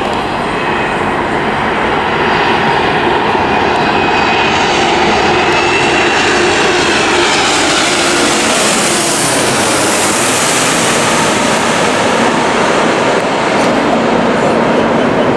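Jet airliner passing low overhead. Its engine roar builds, peaks about halfway through with a hiss, and then falls in pitch as it goes past.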